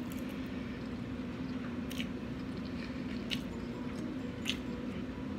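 Close-up chewing of a mouthful of rice and peas, soft and moist, with a few short sharp clicks about a second apart, over a steady low hum.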